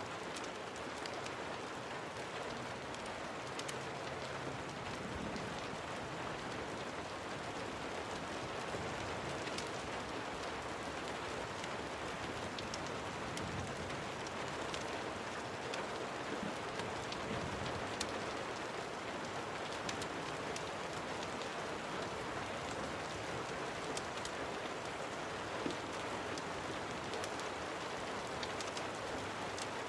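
Steady rain falling, with scattered sharp crackles from a wood fire and one louder pop near the end.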